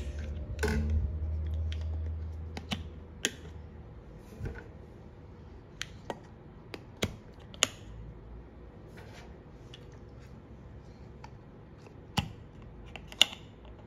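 Plastic lids being set onto and adjusted on the ceramic cups of a natto maker: scattered sharp clicks and taps, about a dozen, with a low rumble in the first few seconds.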